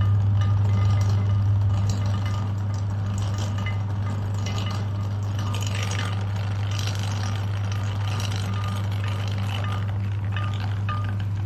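Electric meat grinder motor running with a steady hum, grinding slime, with small clinks and rattles over it. The hum drops slightly about two seconds in.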